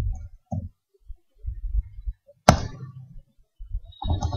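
Computer keyboard being typed on in scattered keystrokes, with one sharp, loud key strike about two and a half seconds in.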